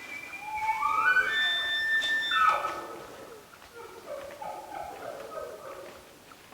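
An elk bugle: a whistle that climbs and holds high for about two seconds, then drops into lower, broken notes.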